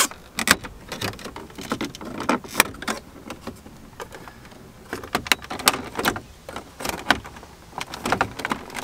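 Plastic dash trim around a truck's radio being pried loose with plastic trim-removal tools: irregular clicks, creaks and scrapes as the bezel's clips and tabs are worked free.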